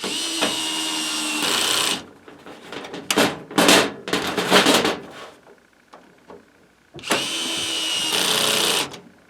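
Small electric screwdriver motor running in two bursts of about two seconds each, at the start and about seven seconds in, each with a steady whine that changes about a second and a half in. Between the runs comes a spell of irregular clattering noise.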